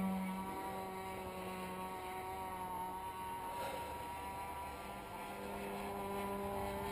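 MDS 10cc glow engine converted to petrol, on an RC delta wing flying overhead, running as a steady drone with small shifts in pitch. The pilot says the engine won't come up to full revs.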